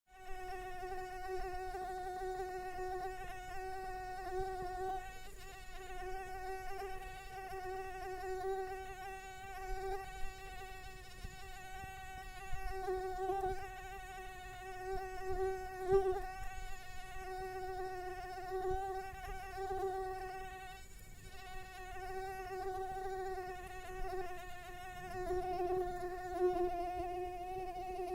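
Mosquito in flight: the steady, whining buzz of its wingbeats, swelling and fading in loudness as it moves about.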